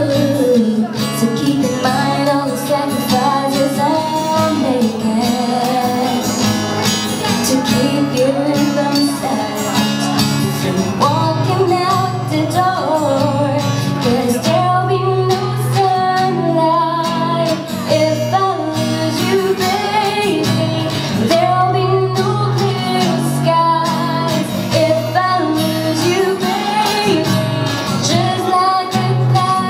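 A woman singing a song live into a microphone, accompanied by a man playing acoustic guitar.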